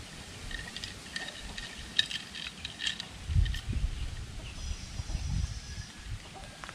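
Outdoor ambience: scattered bird chirps and short clicks, with a brief high chirping about five seconds in, and two low rumbles in between.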